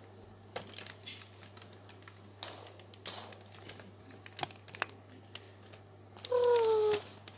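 Scattered light plastic clicks and knocks from toy robots being handled and moved. Near the end comes the loudest sound, a short tone lasting under a second that falls slightly in pitch.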